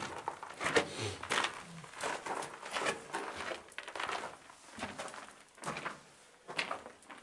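Footsteps crunching on a gritty floor, roughly one step a second.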